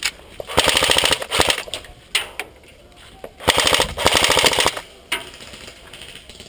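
Airsoft electric guns firing two rapid full-auto bursts, each about a second long, the first about half a second in and the second about three and a half seconds in, with a couple of single snapping shots between and after.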